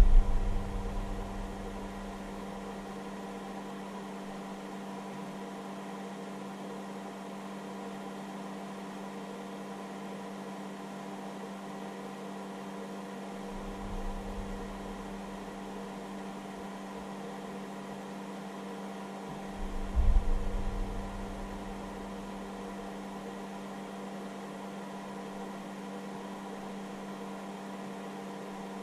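Steady electrical hum with a fan whirr from a hobby battery charger's cooling fan, running while the charger draws about 5 A from a battery under test. A brief low rumble comes in about halfway through, and a louder one about two-thirds of the way through.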